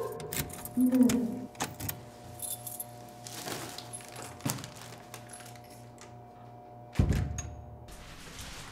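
A door being opened, with small clicks and rattles over a steady low hum; a heavy low thud about seven seconds in.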